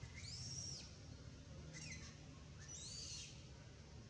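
A macaque giving three short, high-pitched calls about a second apart, each rising then falling in pitch.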